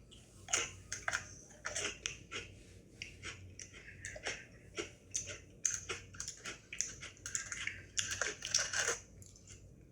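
Someone biting into and chewing crunchy Oreo sandwich cookies: an irregular run of crisp crunches, thickest about eight to nine seconds in.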